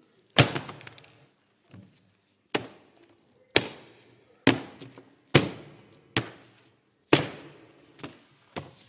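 Hardcover books slammed flat onto tabletops by several people together, as rhythmic percussion. Sharp cracks with a short ringing tail come about once a second, seven loud strikes with a few softer ones between them.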